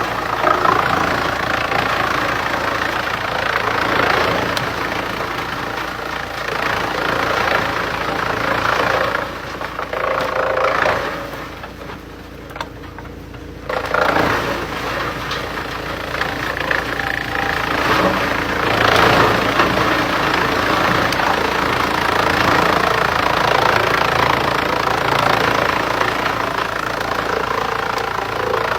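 Industrial wood chipper running and chipping logs: a steady engine drone under a dense grinding of wood. About twelve seconds in the chipping noise drops away for a couple of seconds, leaving mostly the engine, then picks up again.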